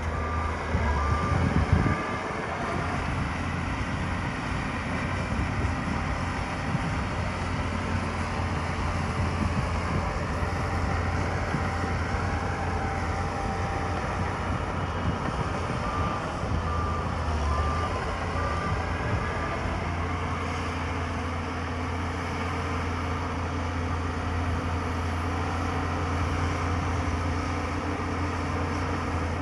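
Heavy diesel engine of an earthmoving machine running steadily, with a reversing alarm beeping in a short run near the start and again a little past halfway through.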